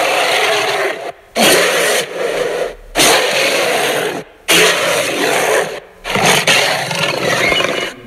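Griffon creature roars, a designed sound effect layered from lion, tiger and other big-animal roars and growls. About five loud roars in a row, each about a second long, with short gaps between them.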